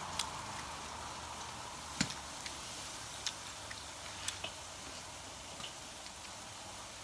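Food grilling over charcoal: a faint steady sizzle with scattered light clicks and ticks.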